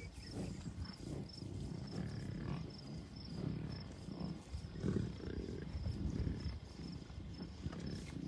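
American bison grunting: repeated low, rumbling grunts from the herd of cows and calves, coming irregularly about once or twice a second.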